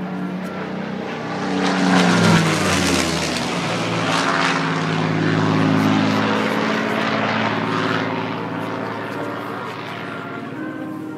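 Spitfire's V12 piston engine flying past overhead during a display. The engine note swells to its loudest about two seconds in and drops in pitch as the aircraft passes, then holds a steady drone that fades near the end.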